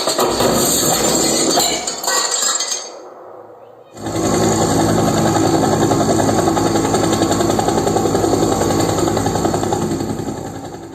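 Sound effects from a surround-sound test track played through a JBL 3.1 soundbar. A loud, clattering burst dies away about three seconds in; after a short pause comes a dense, fast-pulsing rattle that fades out near the end.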